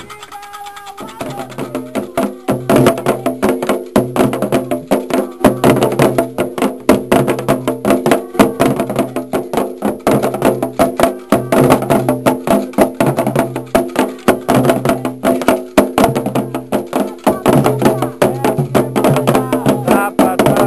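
Afro-Brazilian ritual drumming: a fast, driving rhythm of sharp percussive strokes over steady pitched tones, starting about a second in.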